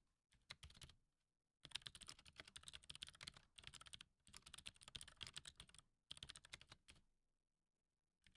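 Faint computer-keyboard typing: quick runs of keystrokes separated by short pauses, stopping about a second and a half before the end.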